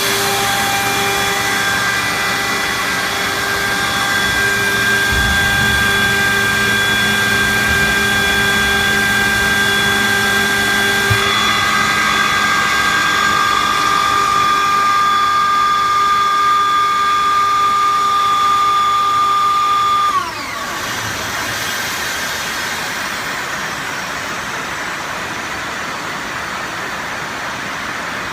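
30 kW screw air compressor running with a steady, many-toned whine. About two-thirds of the way through the whine drops quickly in pitch and dies away as the machine winds down, leaving a steady rushing noise.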